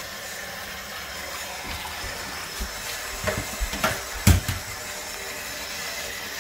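Kitchen tap running into a stainless steel sink while food is rinsed by hand in a plastic basin. A few short knocks and clatters come in the middle, the loudest a little past four seconds in.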